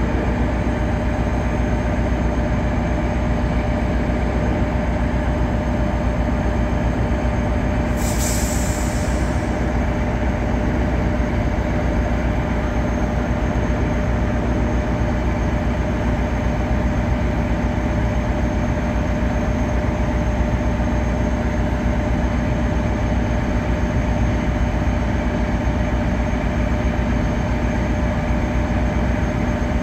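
Caltrain diesel locomotive idling while standing at the platform: a steady engine drone with a low rumble and a few held tones. About 8 seconds in, a short hiss of air lasts about a second.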